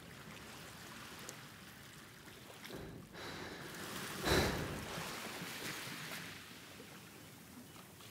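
Sea surf: a steady wash of water with waves swelling and breaking, the largest one about four seconds in, then fading.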